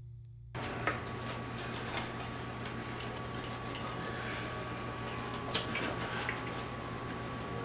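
A rolling pizza cutter slicing through a pepperoni pizza on a wooden peel: a gritty scraping of the wheel through the crust, with a few sharp clicks.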